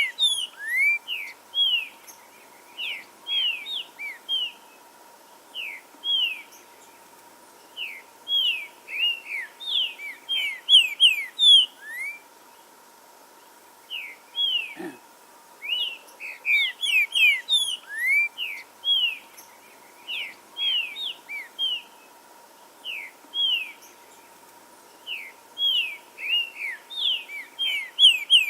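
Green-winged saltator (trinca-ferro) singing: phrase after phrase of loud, short whistled notes, with a pause of about two seconds near the middle. A faint steady tone hums underneath.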